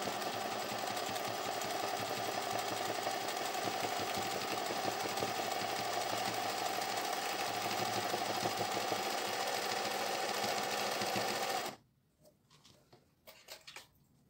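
Singer 20U industrial zigzag sewing machine running fast and steady while satin-stitching a felt appliqué. It stops abruptly near the end and is followed by a few faint clicks and taps.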